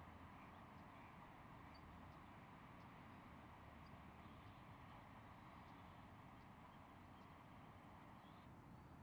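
Near silence: a faint, steady outdoor background hiss and rumble, with a few faint, short, high bird chirps now and then.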